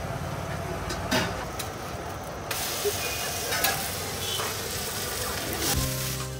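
Water hissing into steam on a hot, flat dosa griddle as the cook sweeps it with a brush. The hiss starts about two and a half seconds in, after a clink, and cuts off shortly before the end.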